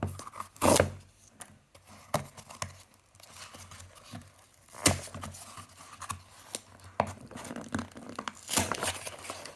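Packaging being torn open by hand, with irregular tearing, crinkling and sharp snaps. The loudest snaps come about a second in, near five seconds and near nine seconds. The package is hard to open.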